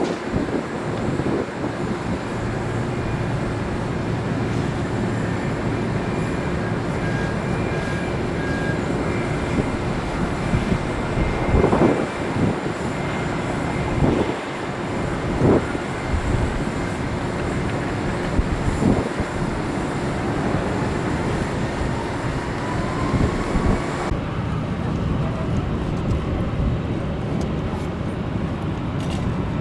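Jet airliner engine noise, a steady roar with a thin whine running through it, broken by a few short loud bumps. About 24 seconds in, the whine stops and the higher part of the sound drops away suddenly.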